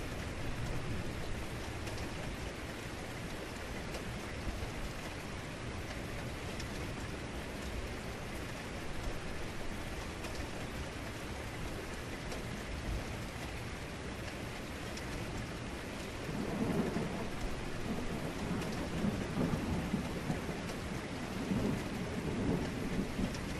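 Heavy rain falling steadily, with deep thunder rolling in about two-thirds of the way through and rumbling on in several swells.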